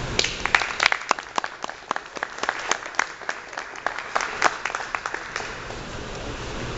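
Audience applauding: many hand claps that thin out and fade over the last second or so.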